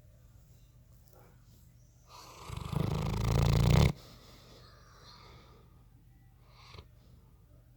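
A bloodhound snoring in its sleep: one long, loud snore starts about two seconds in, grows louder for almost two seconds and cuts off abruptly, followed by a few quiet breaths.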